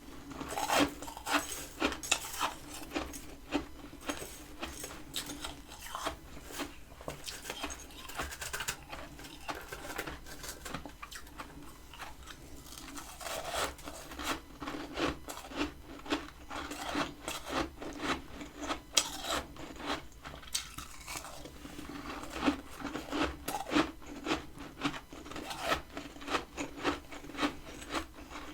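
Freezer frost being bitten and chewed: dense, irregular crisp crunches and crackles, one after another, close to the microphone.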